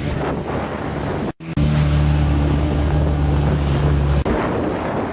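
A boat's motor running steadily, with wind buffeting the microphone and water rushing by. The sound cuts out briefly about a second and a half in, then returns as a louder, steadier engine drone that changes again near the end.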